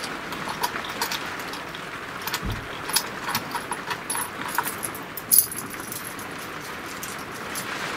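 Small metal clamp parts and screws clicking and clinking as they are handled and fitted into the holes of an MDF spoilboard: a scatter of light ticks, with a sharper clack about five seconds in.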